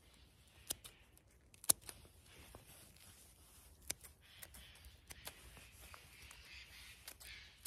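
Scissors snipping the stems of yellowfoot mushrooms: several short, sharp clicks spread out, the loudest a little under two seconds in.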